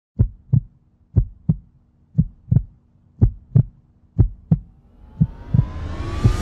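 Heartbeat sound effect from a cinematic intro soundtrack: pairs of low thumps about once a second. From about four and a half seconds in, a rising tone and a swelling whoosh build up under the fading beats, leading into the music.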